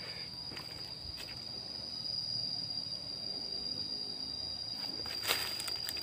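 A steady, high-pitched insect drone, with footsteps rustling through leaf litter and undergrowth and a brief crackle about five seconds in.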